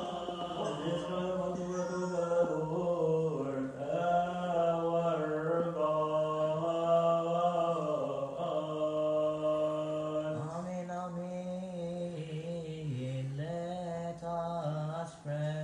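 Male chanting of a Coptic Orthodox liturgical hymn, held in long, drawn-out notes that slide up and down in pitch without pause.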